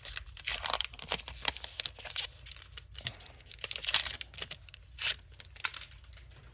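Foil wrapper of a Pokémon trading card booster pack crinkling and tearing as it is opened by hand: a dense, irregular run of sharp crackles.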